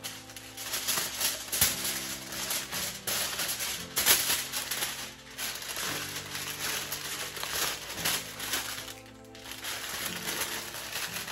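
Aluminium foil crinkling and rustling in irregular bursts as it is folded and pressed around sections of wig hair, over steady background music.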